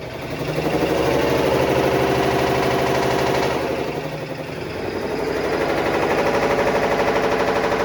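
Black+Decker BPW30MW portable washing machine in its spin cycle, knocking loudly and rapidly in an even rhythm over the motor's hum, easing off about halfway and then building again. The knocking is the fault that was traced to the clutch assembly and belt.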